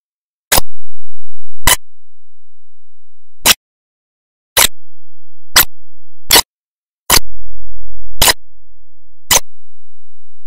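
A series of nine sharp clicks at uneven intervals, from about half a second to nearly two seconds apart, with nothing else audible between them.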